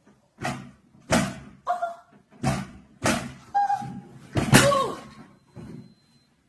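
A run of about seven thuds and bangs, roughly one every half second, the loudest about four and a half seconds in, with a few short pitched sounds among them.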